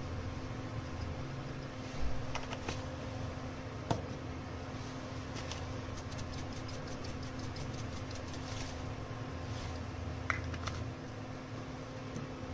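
Plastic spice shakers of black pepper and salt being shaken over a plate of vegetables: scattered clicks and a knock about four seconds in, then a quick even run of rattling ticks at about five a second in the middle. A steady low hum goes on underneath.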